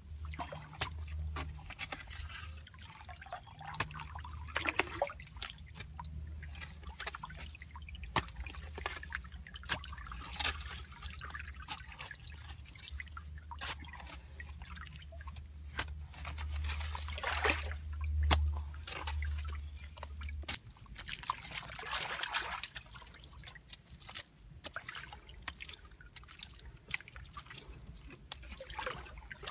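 A hoe chopping and scraping into wet clay, with muddy water splashing and trickling in the dug hole. Scattered sharp knocks come throughout.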